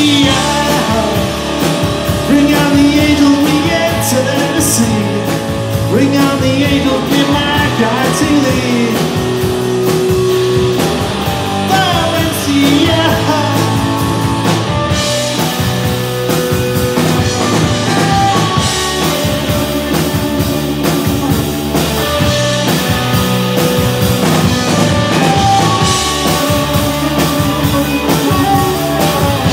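Rock band playing live at full volume: electric guitars, bass guitar and drum kit, with a voice singing over them.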